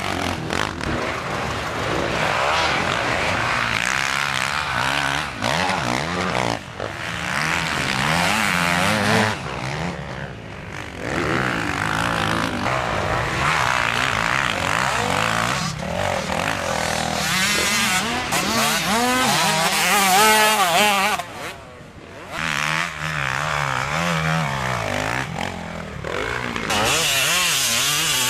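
Motocross bikes' engines revving hard and easing off again and again as riders pass, the pitch rising and falling. The sound dips briefly about twenty-two seconds in.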